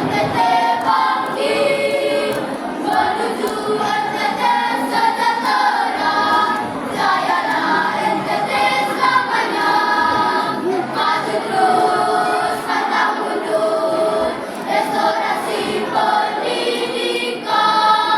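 Children's choir singing a song in several voice parts, holding long notes and moving between them.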